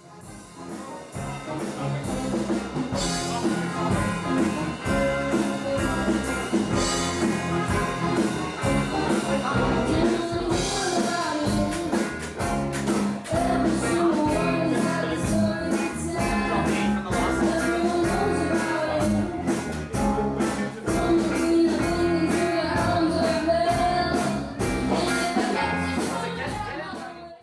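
Rock music with a steady beat and a moving melody line, stopping suddenly near the end.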